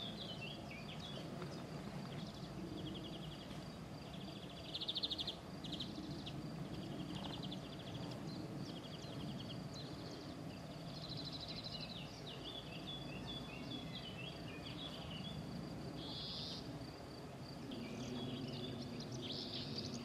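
Open-field ambience: birds singing and insects chirping, with a faint steady high insect note throughout and short trilled bursts every few seconds.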